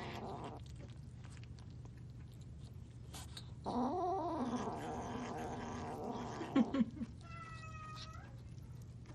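Domestic cat meowing: a long, drawn-out meow about four seconds in, then a shorter meow near the end.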